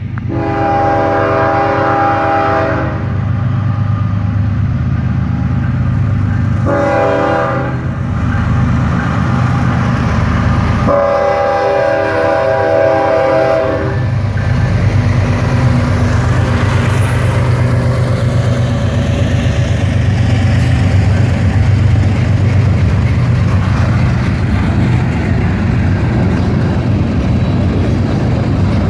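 Norfolk Southern diesel locomotive's air horn blowing for the grade crossing: a long blast, a shorter one, then another long blast. After that the locomotive's engine and the train rolling past make a steady heavy rumble.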